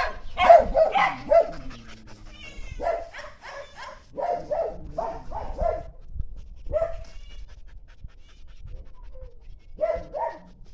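A dog barking in a rapid series of short barks, with a longer falling whine about two seconds in, then a pause and two more barks near the end.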